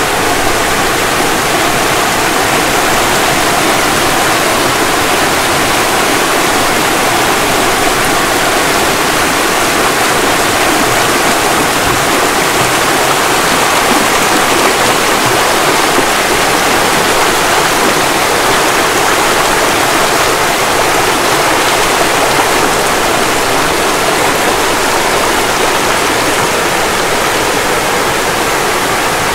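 Fast-flowing stream water rushing steadily and loudly, with no break or change.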